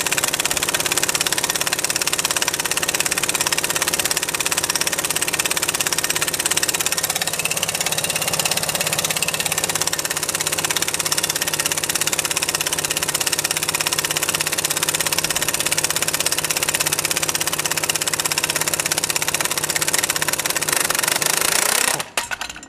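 A 3/4-inch drive impact wrench hammering continuously on the centre bolt of a homemade puller, working at a stuck pulley on an electric motor shaft. It cuts off suddenly near the end.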